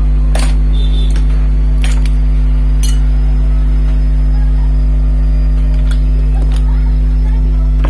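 Steady low electrical mains hum, with a few light metallic clicks and clinks from table fan motor parts being handled, sharpest about half a second, two and three seconds in.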